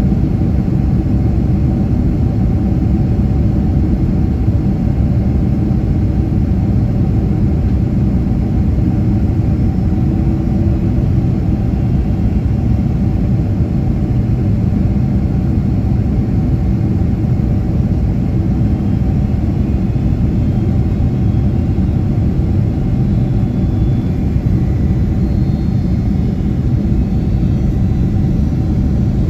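Cabin noise inside a Boeing 767-300ER on approach: a steady low rumble of its Pratt & Whitney PW4000-series jet engines and the airflow past the fuselage.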